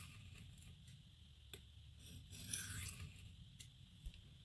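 Steel knife blade scraping across a coarse diamond sharpening plate while the rounded tip is ground back into shape: a faint hissing scrape, with one longer stroke about halfway through and a few light clicks.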